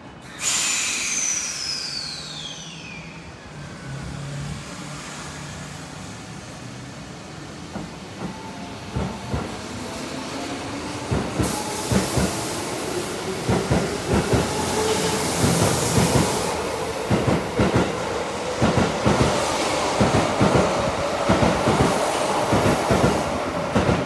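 Tokyo Metro 07 series electric train pulling out. About half a second in it lets out a sudden loud hiss of air with a falling whistle. Then a motor whine rises in pitch and the wheels clack over rail joints, the clacks coming faster and louder as it speeds up.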